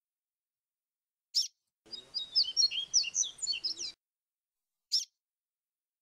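Papa-capim (a Sporophila seedeater) singing one fast warbled phrase of quick, varied whistled notes lasting about two seconds. A single sharp chirp comes shortly before the phrase and another about a second after it.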